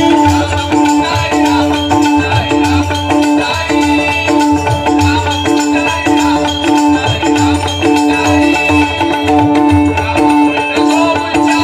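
Marathi devotional bhajan music playing: a steady drum beat with jingling hand percussion over sustained melodic tones.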